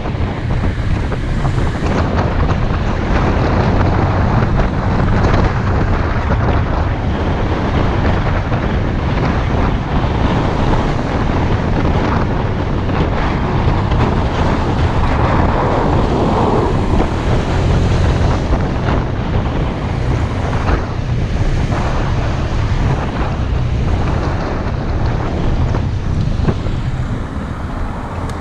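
Wind buffeting the microphone of a moving Honda PCX 125 scooter's rider, over the low steady hum of the scooter's single-cylinder engine. The noise eases slightly near the end as the scooter slows.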